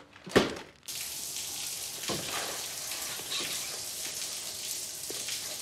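A short, loud sound near the start, then a shower running: a steady hiss of spraying water.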